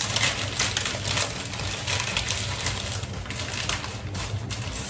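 Hand-twisted spice grinder crushing its contents: a dense, even run of crackling clicks. A steady low hum lies underneath.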